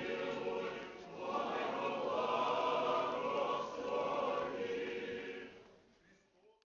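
Orthodox church choir singing a cappella liturgical chant in held, sustained chords. The singing swells about a second in and fades out to silence near the end.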